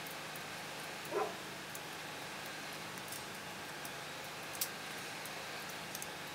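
A steady hiss with a single brief wavering animal call about a second in, and a few faint sharp clicks later on.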